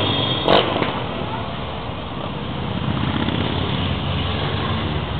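A procession of motorcycles riding slowly past, the engines of many bikes blending into a steady, dense run, with a short sharp click about half a second in.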